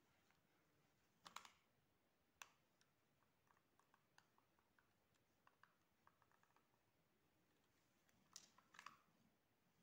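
Faint clicks and small ticks of hands working a fluffy fabric pom-pom ball with needle and thread as it is sewn closed: a short cluster of louder clicks about a second in, a single click a second later, scattered soft ticks, then another cluster near the end.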